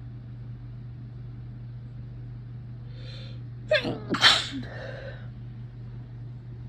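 A person's induced sneeze: a breathy intake, then a sharp voiced catch and a loud sneeze a little after the middle, trailing off in a breath. A steady low hum from an electric fan runs underneath.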